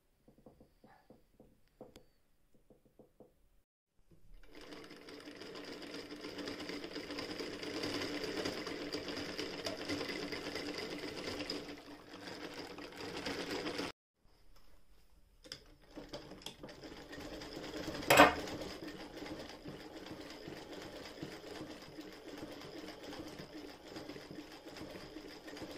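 Chapman Pearl De Luxe hand-crank sewing machine stitching, its needle mechanism running with a steady rattle after a few light clicks at the start. It stops abruptly about halfway through, starts again, and gives one sharp knock shortly after restarting.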